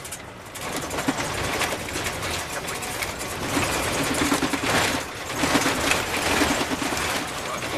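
Vehicle running over a rough road, a steady engine and road noise with lots of rattling.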